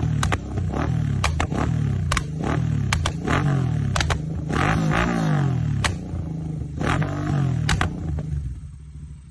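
Royal Enfield 650 parallel-twin motorcycle engine on a custom remap, revved repeatedly so the revs rise and fall, with sharp exhaust pops and crackles on the overrun. Near the end the revs drop away and it settles toward idle.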